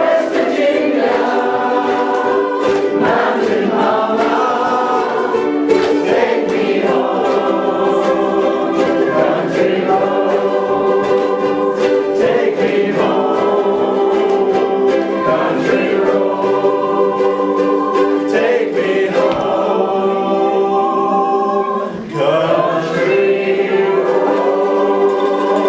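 A ukulele group singing together in chorus over many strummed ukuleles, with a short break in the singing near the end before it picks up again.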